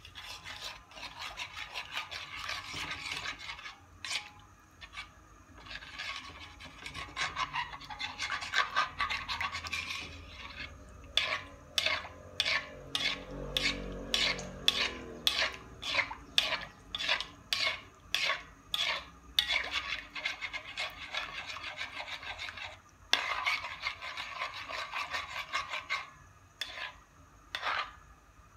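Spatula scraping and rubbing against the wok while fish is stirred in simmering chili sauce. There are stretches of rasping, and in the middle a run of regular sharp strokes about two a second.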